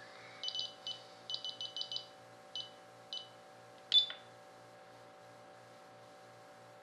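Radio-control transmitter beeping as its keys are pressed: about a dozen short, high beeps in quick irregular groups over the first three seconds, then a single sharp click about four seconds in, over a faint low pulsing hum.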